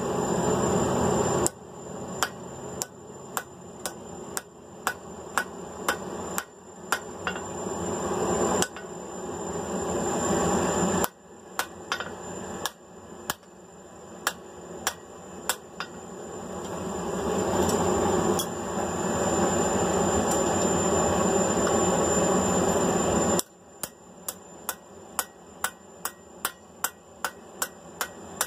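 Hand hammer striking mild steel flat bar on an anvil in series of ringing blows, about two a second, as the forged piece is cleaned up. Between the series there is a steady rushing noise.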